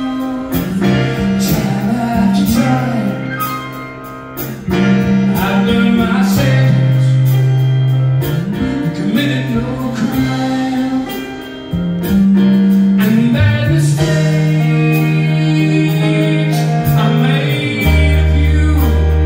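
Live music: a man singing while playing a grand piano, with an electric guitar accompanying. A deep bass note comes in near the end.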